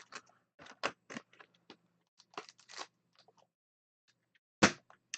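Trading cards being handled: short, scattered rustles and scrapes of card stock and packaging, with a sharper click about four and a half seconds in.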